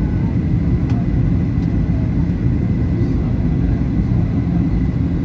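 Steady low rumble of cabin noise inside a Boeing 737-800 on its descent to land, the engines and airflow heard from a seat over the wing, with a faint steady high whine above it.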